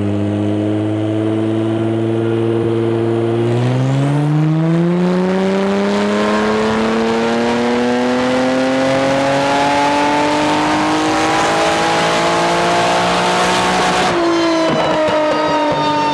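Twin-turbo 3.3-litre V6 from a Kia Stinger running on a chassis dyno during a power pull. It holds steady for about three and a half seconds, then rises steadily in pitch for about ten seconds as it sweeps up toward its roughly 7,000 rpm redline. Near the end it drops sharply in pitch as the throttle closes and it coasts down.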